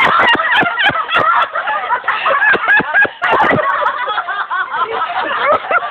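Crow-scarer bangers going off inside a snowman: a rapid string of sharp bangs and pops through the first three and a half seconds, over a dense shrill chatter.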